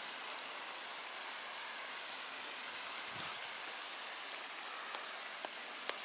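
Steady, even hiss of outdoor background noise, with a few faint ticks near the end.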